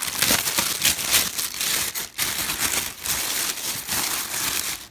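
Plastic wrapping crinkling and rustling as it is pulled off a new subwoofer, in quick irregular crackles with brief pauses, the loudest about a second in.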